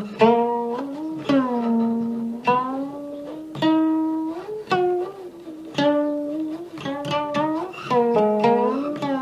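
Background music: a solo plucked string instrument playing a slow melody, each plucked note ringing on and bending up or down in pitch.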